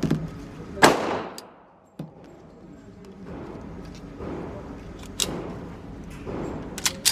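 Pistol shots on a shooting range: one loud shot about a second in with a long echo trailing off, then fainter sharp cracks later on and near the end.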